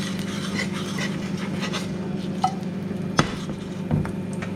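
Garlic cloves sizzling gently in olive oil in a frying pan, a fine crackle over a steady low hum, with a sharp clink of the pan about three seconds in.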